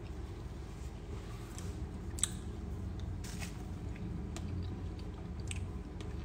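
Low steady room hum with a handful of small sharp clicks and taps scattered through it, the sharpest about two seconds in.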